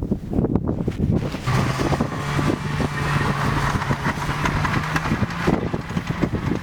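A motor vehicle driving over rough ground: a steady engine hum with many rattles and knocks. The engine tone settles in about a second and a half in and fades near the end.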